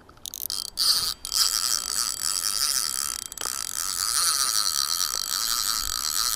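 Fixed-spool spinning reel's mechanism running in a fast, continuous ratcheting whirr, which starts with a couple of sharp clicks just after the beginning.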